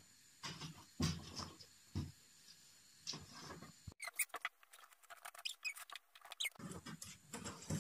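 Scissors scratching and snipping through packing tape on a cardboard box: a few soft bumps at first, then from about four seconds in a quick run of small scratchy clicks.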